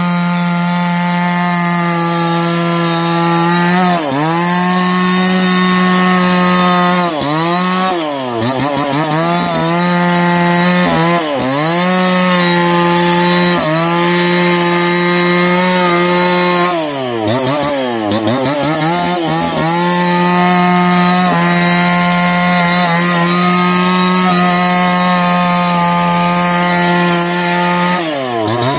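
Two-stroke chainsaw running at high revs with a steady tone, its pitch dropping sharply and recovering several times, most deeply about eight and seventeen seconds in.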